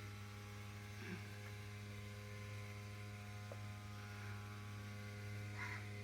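Steady low electrical hum, a faint mains-frequency buzz with no change throughout.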